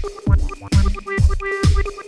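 Electronic dance track: a kick drum that drops in pitch on each hit, about twice a second, with short synth notes and high bleeps over it.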